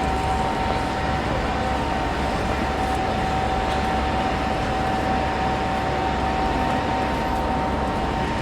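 London Underground platform ambience: a train at the platform running with a steady rumble and a constant high whine.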